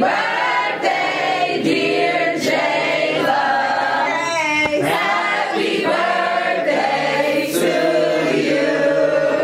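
Several people singing together in long held notes.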